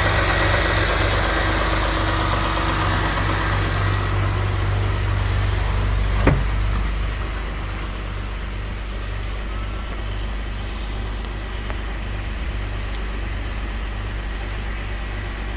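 BMW S54 straight-six idling, with the rattle the owner traces to the Vanos unit near its pressure accumulator on the exhaust-manifold side. A single sharp click comes about six seconds in, and the engine sound is quieter after it.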